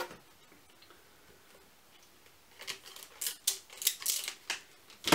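A rolled-up paper art print being handled, with a run of short crackles and rustles from about halfway in after a quiet start, as an elastic band is worked around the roll.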